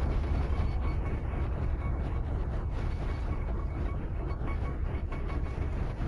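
Steam train rumbling and clattering as it runs along the track, a heavy low rumble with irregular rattling and a faint steady high squeal over it.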